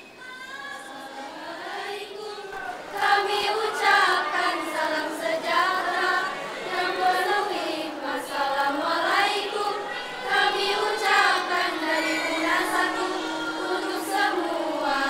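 Female choir singing, starting softly and growing louder about three seconds in.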